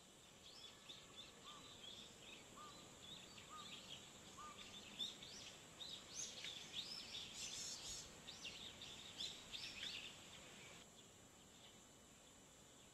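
Faint twittering of small birds: many short, quick, high chirps overlapping over a faint steady high hiss. The chirping stops suddenly about eleven seconds in, leaving only the hiss.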